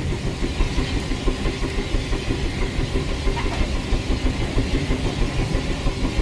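Steam locomotive running at medium speed, heard from inside the driver's cabin: a steady rhythmic chuffing over a heavy rumble and hiss.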